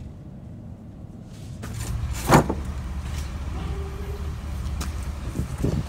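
Low steady vehicle rumble, with one loud, brief knock about two seconds in and a few lighter clicks near the end.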